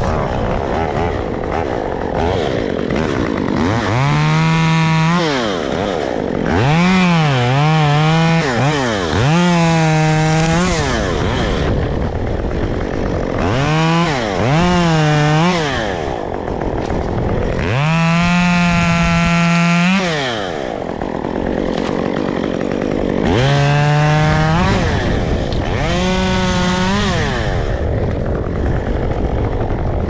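Two-stroke chainsaw revved up in short bursts of one to two seconds, about eight times, dropping back to idle between them, as when making cuts in tree removal.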